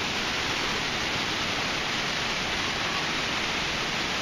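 Steady rush of running water from a mountain river, an even hiss with no breaks.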